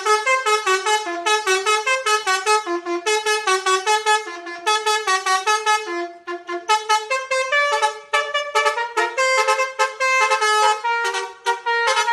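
Bus telolet horn (a Basuri multi-tone horn) playing a fast tune of short, clipped notes, several a second, with only brief breaks.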